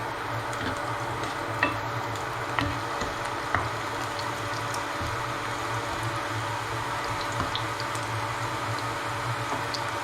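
Onions frying in hot oil in a pot, a steady sizzle with a few sharp pops of spitting oil, the first about one and a half seconds in and two more within the next two seconds.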